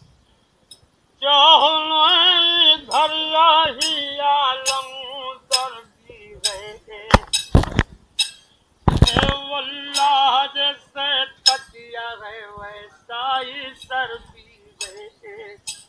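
An old man singing with a wavering pitch, to sharp metallic clinks of a steel rod struck against the metal bangle on his wrist. The singing starts about a second in, breaks off near the middle where a couple of louder knocks sound, then resumes.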